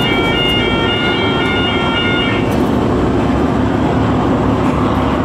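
A departing express train rumbling steadily as it runs out of the station along the track. For the first two and a half seconds, a set of high, broken tones, like a chime, sounds over it and then stops.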